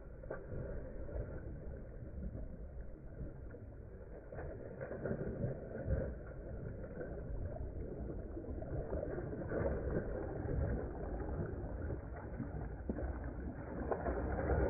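A dog bounding and wading through shallow water, with irregular splashing that grows louder as it nears, over a steady low rumble.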